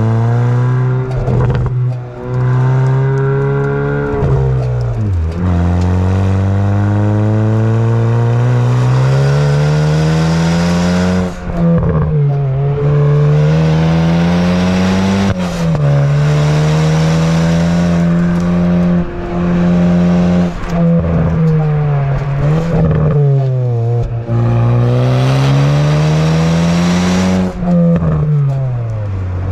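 Car engine revving hard on a track lap: the pitch climbs through each gear and drops sharply at each shift or lift, several times over, with some steadier stretches at high revs.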